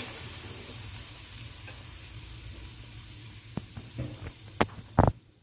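Stir-fried vegetables, chicken and tofu sizzling in a pan with a steady hiss. A few short knocks come in the last two seconds, the loudest just before the sound cuts off.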